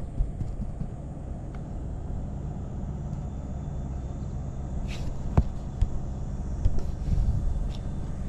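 Buell XB12SS Lightning's 1203 cc air-cooled V-twin idling steadily on a cold start, with a few sharp clicks about two-thirds of the way through.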